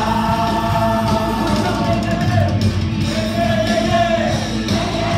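Live church worship band playing an upbeat song, with several singers on handheld microphones singing held notes over amplified instruments.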